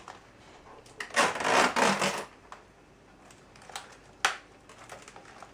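Protective plastic film being peeled off a new LED monitor: a loud, noisy rasp of film pulling away about a second in, lasting about a second, then a few sharp crackles near four seconds in.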